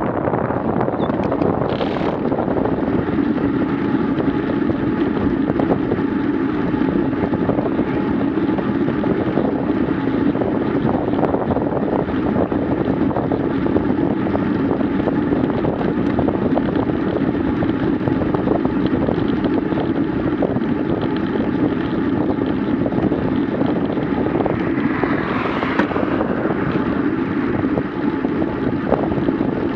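Steady wind buffeting on the microphone of a handlebar-mounted action camera on a moving bicycle, with a brief swell of brighter noise near the end.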